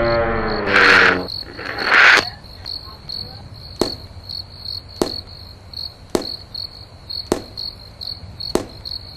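Crickets chirping in a steady, pulsing trill. In the first two seconds a held tone and two short, loud hissing bursts sound over them. From about four seconds in, a sharp knock comes five times, evenly spaced a little over a second apart.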